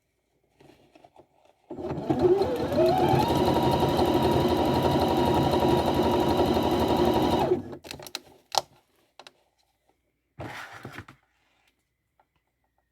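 Sewing machine stitching at speed: its whine rises as the motor speeds up over the first second, holds steady for about five seconds, then stops suddenly. A few light clicks and a brief rustle follow.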